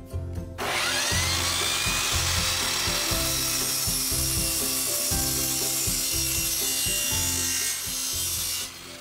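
Compound miter saw starting up about half a second in, its blade spinning up and cutting through a wooden board, running steadily until it winds down near the end. Background music with a steady beat plays underneath.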